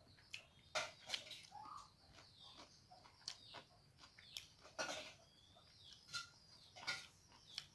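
Close-miked eating sounds: irregular wet clicks and smacks of chewing a mouthful of rice and beef curry, along with fingers mixing rice on the plate.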